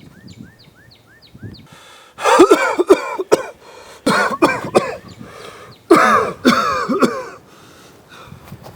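A man coughing hard and clearing his throat in three loud fits.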